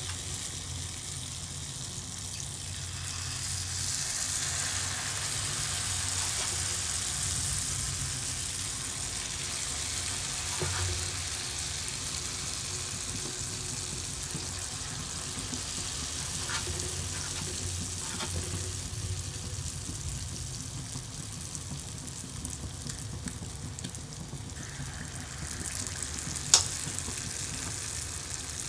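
Oil sizzling steadily as palmyra-fruit batter fritters deep-fry on low to medium-low heat, a little louder for a few seconds early on. A few faint clicks and one sharp click near the end.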